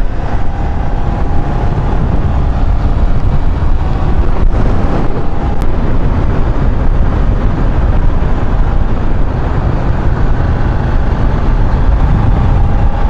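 Wind buffeting the microphone over the steady running of a Cagiva Gran Canyon 900's air-cooled Ducati V-twin at cruising speed on the open road.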